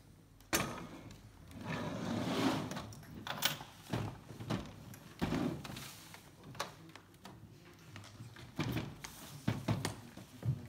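Clear plastic ballot box being opened and lifted off its base and set down: a series of sharp clacks and knocks of its lid and frame against the table, with rustling and sliding of envelopes spread out for the count.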